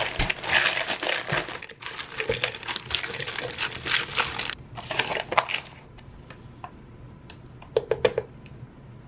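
Frozen berries poured from a plastic bag clattering into a plastic blender cup, with the bag crinkling, for about five and a half seconds. Near the end come a few light taps.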